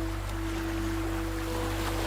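Soft ambient relaxation music of long held tones, over a steady wash of sea waves.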